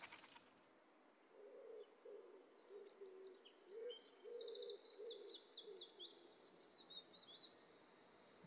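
Faint birdsong ambience: quick high chirps and trills over a series of low hooting calls, starting about a second and a half in and dying away near the end.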